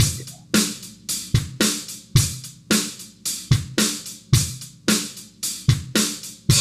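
Dry, unprocessed drum-kit loop: kick, snare and hi-hat playing a steady beat, a hit about every half second, each hit short and clean with no reverb tail. It is the untreated input for a plate reverb demonstration.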